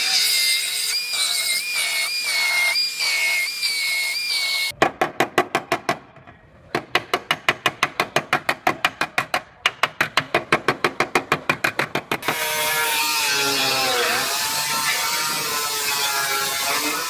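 Power-tool work on car-body sheet steel in three parts. First a narrow belt file sander whines against the panel, its pitch wavering. Then a hammer drives a chisel in rapid sharp blows, about five a second, to split the old dogleg section away. From about twelve seconds in, a cut-off wheel grinds through the new dogleg panel's steel, its whine dipping briefly under load.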